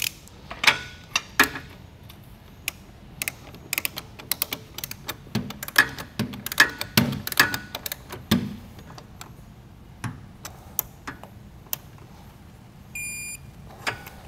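Sharp metal clicks and clinks of a wrench and socket being worked on a motorcycle's rear axle nut. Near the end comes a single high electronic beep lasting under a second, from a digital torque wrench, signalling that the set torque is reached.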